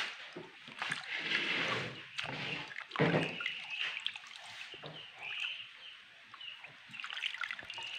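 Hands swishing and sloshing water in a plastic basin while washing mushrooms, with water trickling back into the basin as pieces are lifted out. The swishes come irregularly, the strongest about a second and three seconds in.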